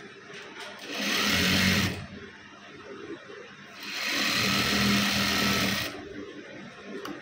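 Industrial single-needle lockstitch sewing machine stitching a fabric pocket seam in two runs, about a second long and then about two seconds long, with a pause between while the cloth is repositioned.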